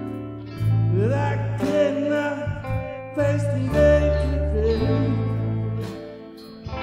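Live rock band: a male singer sings a line over electric guitars, bass and drums. His voice comes in about a second in with a rising slide and drops out shortly before the end, leaving the band playing.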